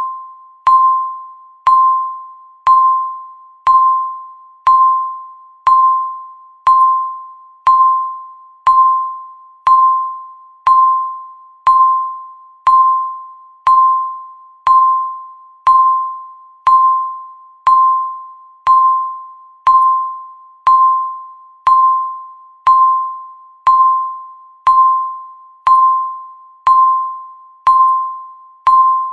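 Countdown timer beeping once a second: a single electronic chime-like tone that strikes sharply and fades away before the next beep, in an even, unbroken rhythm.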